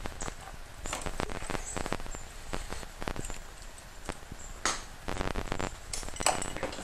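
Scattered clicks and light rattles of a key and hands working the ignition switch of a Yamaha automatic scooter, with a few sharper clacks in the second half. No engine running.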